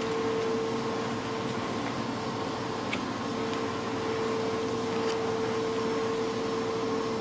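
Steady background hiss with a constant low hum. A couple of faint ticks come from chrome trading cards being slid past one another in the hands.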